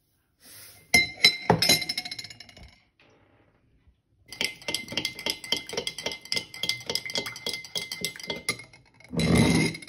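Metal spoon clinking against a drinking glass while chia seeds are stirred into water: a few sharp ringing clinks about a second in, then steady stirring at about five clinks a second. A short burst of noise near the end.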